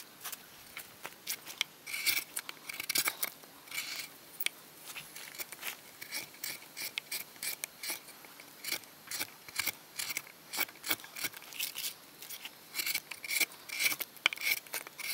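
Hand gouge slicing shavings out of the hollow of a birch kuksa bowl: a quick, uneven run of short, crisp cuts, several a second.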